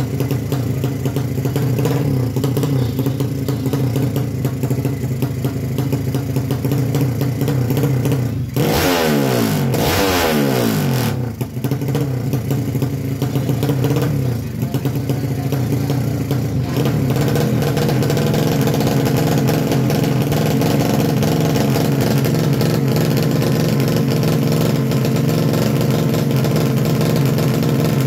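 Four-stroke underbone drag-bike engine of up to 200cc, with an open racing exhaust, running loudly and steadily at the start line. About eight seconds in, an engine's pitch sweeps downward over a couple of seconds, then the steady running returns.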